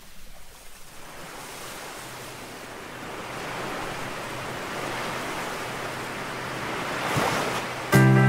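Ocean surf washing onto a sandy beach, a steady rush of noise that swells gradually louder. Music comes in with a loud chord near the end.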